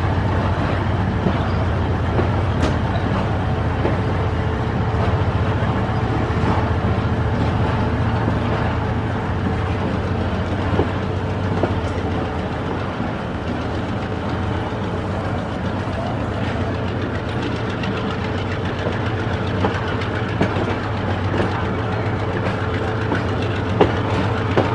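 Passenger train under way, heard from an open coach door: a steady rumble of the coaches and wheels on the rails, over the low drone of the diesel locomotive at the head of the train.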